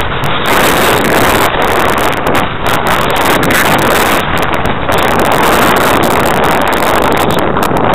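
Loud, steady rush of wind buffeting the microphone of a camera mounted on a ParkZone Radian Pro electric glider in flight.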